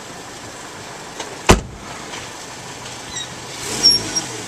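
Car door slamming shut once, a sharp loud bang about a second and a half in; a few more knocks and rustles follow near the end.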